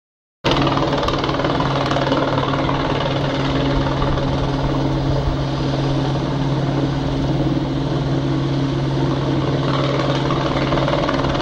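Light helicopter hovering low overhead: a steady, loud rotor and engine sound with a deep hum, cutting in suddenly about half a second in.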